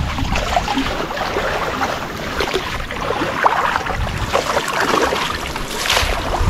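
Shallow marsh water splashing and sloshing as people wade through it and work at clumps of floating vegetation, with many short crackles and drips throughout.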